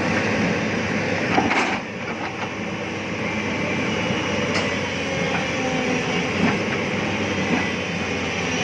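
Heavy diesel machinery running steadily, with a few sharp metallic knocks about a second and a half in.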